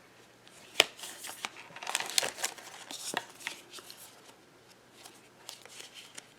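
Thick, glossy cardstock journaling cards being handled and set down. A sharp tap comes about a second in, then a flurry of rustling and clicking that thins out to a few light clicks.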